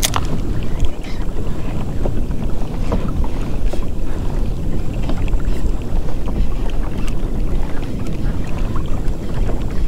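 Wind rumbling on the microphone over a kayak on choppy water, with small splashes and light knocks against the hull; a sharp click comes right at the start.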